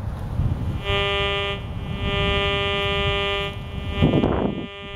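Metal detector giving a steady buzzing target tone, twice: about a second at first, then a longer stretch of about a second and a half as the search coil sweeps over the spot. The tone signals a shallow coin, read from the display as probably a dime, possibly a copper penny. A brief loud rustle follows near the end.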